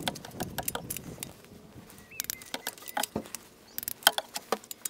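Torque wrench ratcheting as spark plugs are tightened down, irregular metallic clicks in short runs, the loudest about four seconds in.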